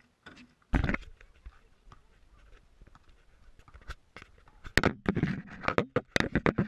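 Handling noise from a small camera being picked up by hand and set down on a steel wheel rim: a loud knock about a second in, light scraping, then a quick run of sharp knocks and rubs in the second half.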